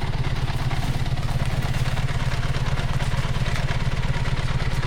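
A vehicle engine idling steadily, with an even low pulsing beat that holds the same speed and level throughout.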